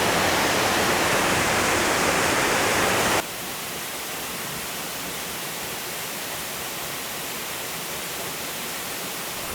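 Waterfall rushing, a steady hiss of falling water. About three seconds in it drops suddenly to a quieter level and carries on steady.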